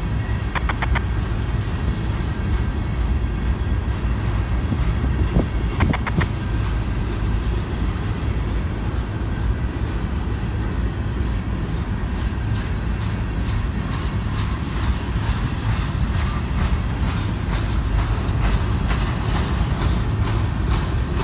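Empty covered hopper cars of a freight train rolling past with a steady low rumble. There is brief high metallic ringing about a second in and again around six seconds in. From about halfway through, the wheels click rhythmically over rail joints, two to three clicks a second.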